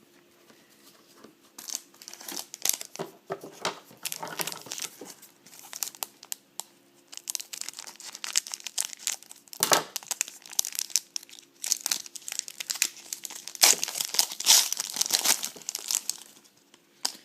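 Trading-card pack wrappers being torn open and crinkled by hand: irregular crackling and tearing throughout, loudest about ten seconds in and again in a long stretch near the end.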